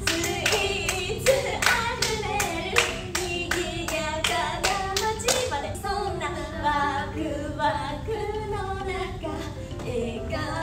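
Hands clapping a steady beat, about four claps a second, while women's voices sing the melody unaccompanied. The clapping stops about five and a half seconds in and the singing goes on.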